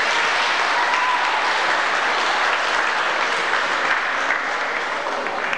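Audience applauding, a steady clatter of clapping that begins to die down near the end.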